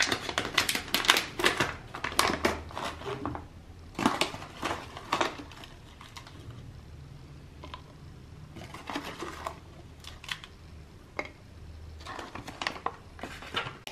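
Plastic resealable food pouch crinkling and crackling as it is opened and handled, in bursts that are densest in the first few seconds and return in shorter clusters later.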